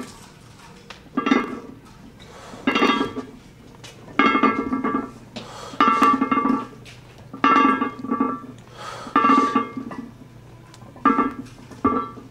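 Background music: a repeated short pitched phrase or chord about every second and a half, with quieter gaps between.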